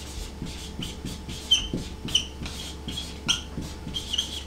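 Dry-erase marker writing on a whiteboard: soft rubbing strokes and a run of short, high squeaks as the letters are drawn, the squeaks coming more often from about a second and a half in.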